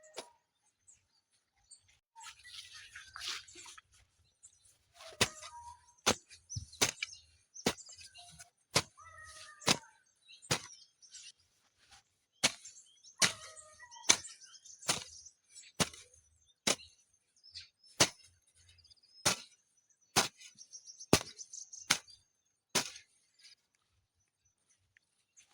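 A hand farm tool repeatedly strikes into soil and grass, about one stroke a second, with rustling and scraping between the strokes. The strokes begin about five seconds in and stop shortly before the end.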